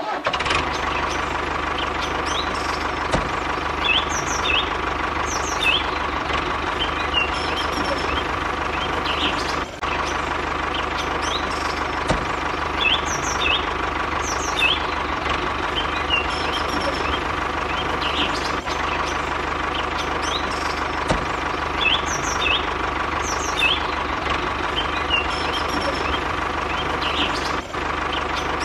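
A steady mechanical drone, like a small motor running, with short high chirps, like birds, repeated over it.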